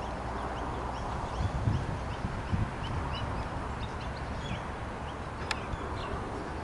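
Outdoor ambience: wind buffeting the microphone with uneven low thumps, and small birds chirping faintly throughout.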